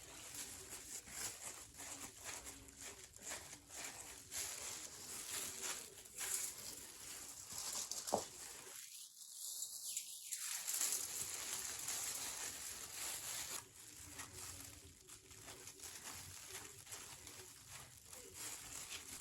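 Faint rustling and light tapping of hands handling small objects, with one sharp click about eight seconds in. Just after the click, the sound drops out to silence for about two seconds.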